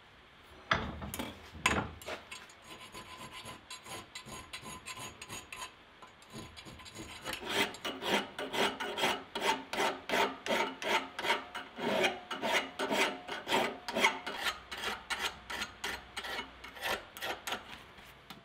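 Hand file rasping across the edge of a forged steel brush handle clamped in a vise, in quick even strokes about three a second, light at first and harder and louder from about halfway through. A couple of sharp metal knocks come about a second in.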